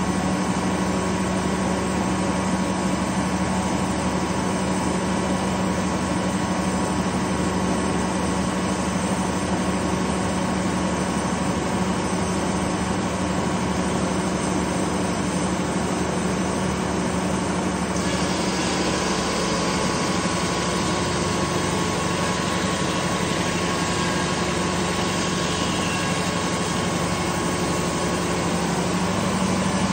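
Detroit Diesel two-stroke engine running at a steady speed, powering a circular sawmill whose big blade spins free between cuts. The higher hiss changes abruptly about eighteen seconds in, while the engine's pitch holds steady.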